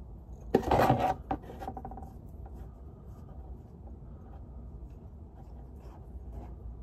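A metal socket and extension loosening the rear differential drain plug on a van. About a second in there is a short, loud scrape with a few clicks after it, then faint handling sounds over a low steady background.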